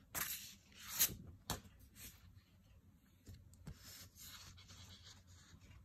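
Large paper art prints being handled and slid over one another: a few quick swishes of rubbing paper in the first second or so, a light tap, then softer rubbing.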